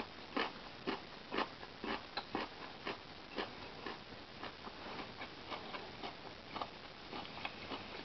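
European hornet chewing at a hard rim with its mandibles: crisp, irregular clicks, about two a second.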